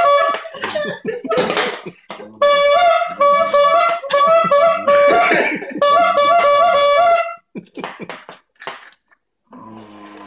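Chrome bulb squeeze horn honking loudly again and again as a dog bites and presses its rubber bulb: short honks in quick succession, then one longer honk. A few light knocks follow near the end.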